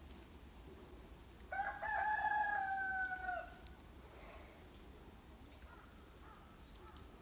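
One long bird call lasting about two seconds, starting with a short stutter, held on one pitch and dropping at the end, over a faint outdoor background.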